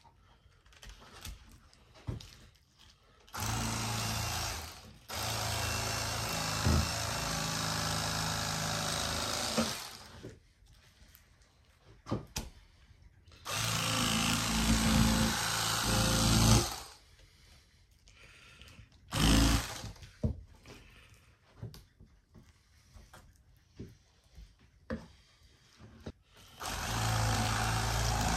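Cordless battery-powered electric fillet knife running as it cuts fish fillets. It starts and stops several times, in bursts lasting from under a second to about five seconds, with short handling clicks in the quiet gaps.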